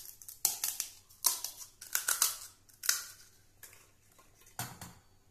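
Crisp fried golgappa (puri) shells cracking as a finger breaks open the top of each one: six or seven short, crunchy crackles, one shell after another.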